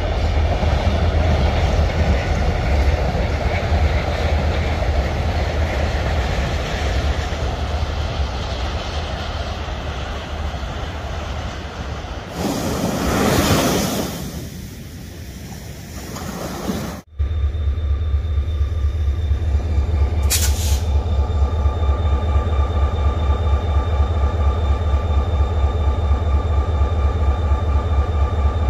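Korail 7541, a 1970s GM-EMD diesel-electric locomotive, with its diesel engine running and giving a steady low throb. In the middle there is a few seconds of surf breaking on a beach. After a sudden cut the engine idles at the station with an even pulsing throb and a steady high whine over it.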